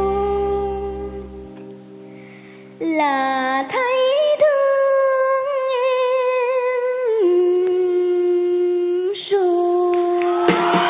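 Music: a held chord fades out, then a woman's voice sings long, wordless held notes that slide and step down in pitch. Instrumental accompaniment comes back in near the end.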